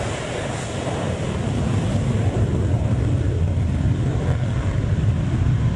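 Jet engines of an F/A-18 Hornet on its takeoff run: a steady rushing rumble, heaviest in the deep range, that grows gradually louder.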